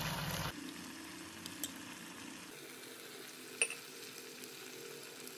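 Metal spoon stirring a maida (all-purpose flour) and water slurry in a small glass bowl, with a few light clicks and one sharper clink of spoon on glass about three and a half seconds in, over a faint sizzle from the pan.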